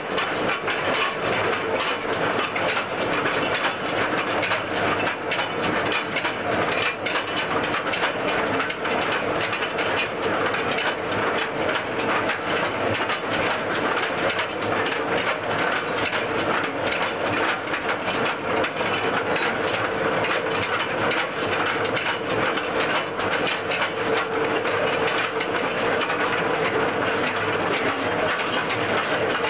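Longwall coal shearer and chain face conveyor running: a loud, continuous clattering rattle over a steady hum.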